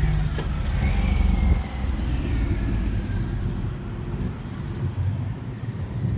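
Street traffic: a car going by, its low rumble loudest for about the first second and a half and then easing off into steady road noise.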